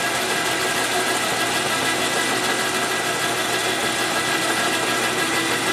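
Metal lathe running under power with the chuck spinning, taking a test cut on a part held in the chuck. A steady hum of motor and gearing with several steady tones over an even hiss, unchanging in level.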